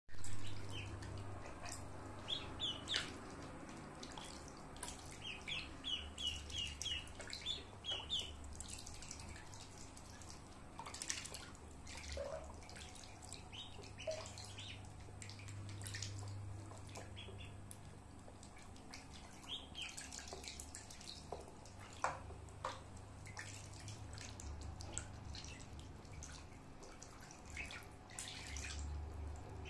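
Ducklings peeping in quick runs of short, high chirps, with small splashes and drips of water.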